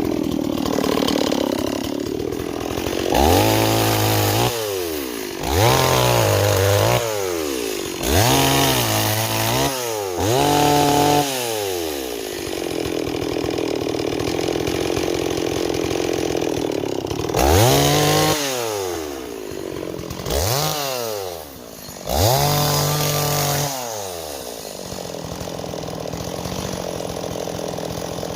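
Stihl 026 two-stroke chainsaw running, its throttle opened hard about seven times in short bursts, each time winding up and then dropping back to idle. The saw, which came in as a no-start, now runs and revs cleanly.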